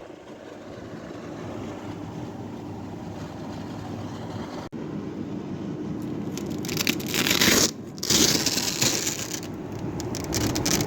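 Iris Ohyama IPA-2822G portable air conditioner running with a steady hum. About six seconds in, loud scraping and rustling starts, breaks off briefly, then carries on for a few seconds.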